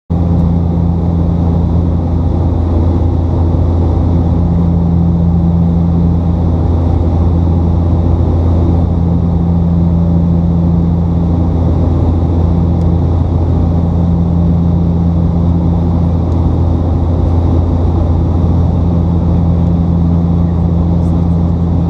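Cabin of a Bombardier Dash 8 Q400 turboprop in flight, seated beside the propeller: the loud, steady drone of its Pratt & Whitney PW150A engines and six-bladed propellers. A deep steady hum runs underneath, and a slightly higher tone swells and fades every few seconds.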